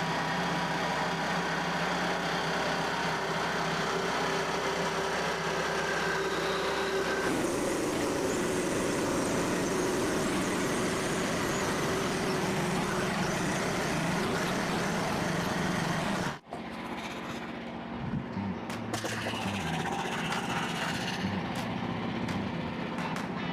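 Portable bandsaw sawmill's engine running steadily, its sound shifting about seven seconds in as the mill works through the log. About sixteen seconds in it cuts off abruptly, and a quieter, different sound follows.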